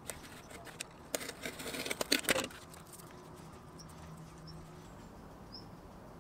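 Masking tape being cut with a snap-off utility knife on cardboard and rolled tightly around a screw: faint clicks and short scratches through the first two seconds or so, then only faint room tone.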